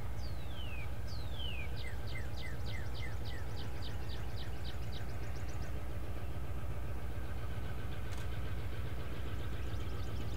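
EMD GP9RM diesel locomotive running with a steady low drone. Over it a songbird sings: two falling whistled notes, then a rapid trill of repeated notes, about five a second, and a second trill near the end.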